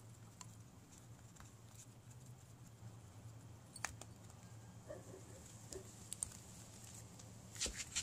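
Faint, scattered small clicks and light scraping of hands and a small hex driver working on a 1/10-scale RC truck's plastic steering knuckles and screws, with a sharper click about four seconds in and a few more near the end, over a steady low hum.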